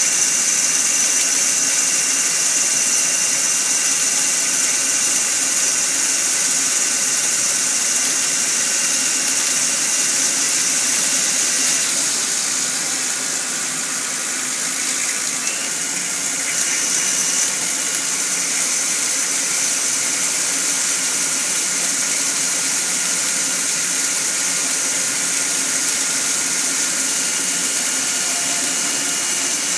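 Mori Seiki SL-2H CNC lathe running while turning aluminium bar stock: a steady high-pitched machine whine over an even hiss of coolant spray. The whine's pitch shifts partway through.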